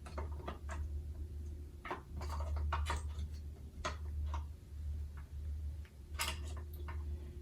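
Irregular light clicks and taps of hard carbon fiber mirror caps being handled and test-fitted, over a steady low hum.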